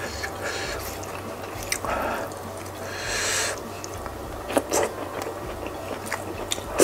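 Close-up mouth sounds of a man eating very spicy meatball soup: chewing and wet smacking, with a breathy hissing exhale about three seconds in as he copes with the chili heat. A few sharp clicks of wooden utensils on the plate come later and near the end.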